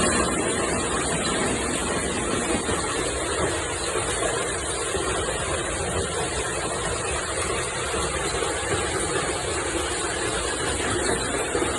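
Heavy thunderstorm downpour beating down steadily, a dense, even hiss with no pauses.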